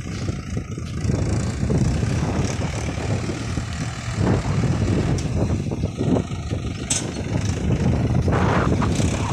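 Swaraj 843 XM tractor's three-cylinder diesel engine running steadily under load while pulling a tined cultivator through the soil.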